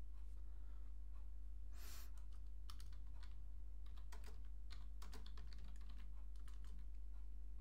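Keystrokes on a computer keyboard: a string of irregular, quick key clicks starting about two seconds in, as a short command is typed, over a steady low hum.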